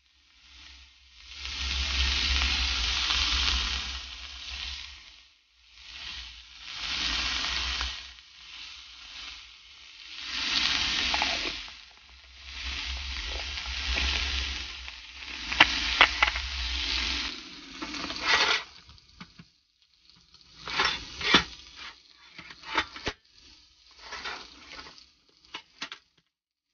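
Food sizzling in a hot pan, swelling and fading every few seconds, with low rumble beneath. From about two-thirds of the way in the sizzle drops away and sharp clicks and knocks follow, like utensils against the pan.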